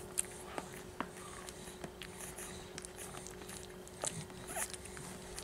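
Two-week-old beagle puppies nursing: faint, scattered suckling clicks and smacks, with a faint steady hum beneath.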